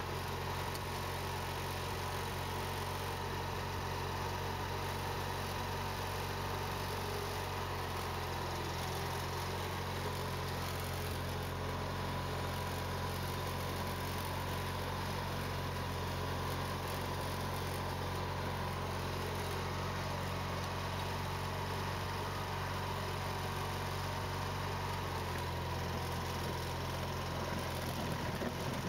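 Garden tractor engine running steadily as the tractor pushes snow with a front plow blade. The engine note shifts slightly about eight seconds in and again near twenty-five seconds.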